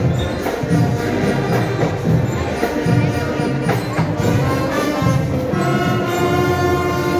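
Live school marching band (banda de paz) playing: brass over percussion with a steady beat, moving into long held brass notes near the end.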